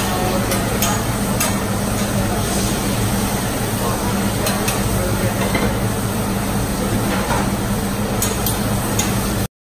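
Noodles, tofu and vegetables sizzling on a large round flat-top Mongolian barbecue grill as a cook stirs and scrapes them with long metal spatulas, with scattered sharp clicks of the spatulas on the griddle over a steady low hum.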